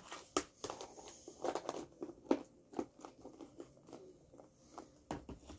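Plastic food-storage container handled and its lid worked with the hands: a run of irregular plastic clicks and crackles.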